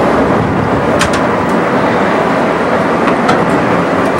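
Steady loud rushing noise, with a few sharp taps about a second in and again near three seconds: footsteps on steel grating stairs.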